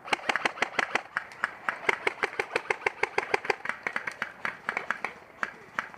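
G&G airsoft gun firing long full-auto strings, a fast even run of sharp cracks at about ten shots a second. The firing is heaviest through the first three and a half seconds and breaks into shorter bursts near the end.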